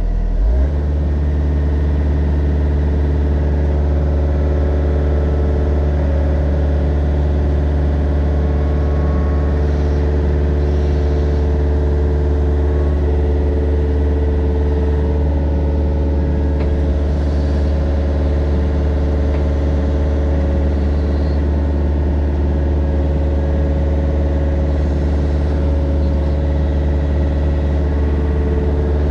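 Mini excavator engine running steadily under working throttle, picking up speed about half a second in and then holding an even pitch.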